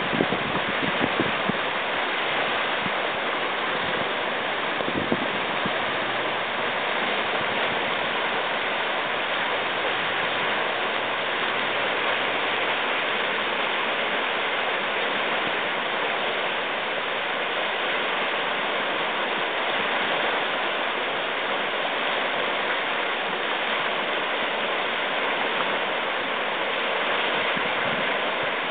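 River rapids running high, about 800 cubic feet per second of water rushing steadily through a rough stretch. A few brief low thumps come in the first second or two and again around five seconds in.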